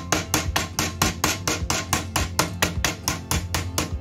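Rapid, even hammer taps, steel on the metal body of a Peugeot 206 hydraulic power steering pump held in a vise, about four a second, over background music.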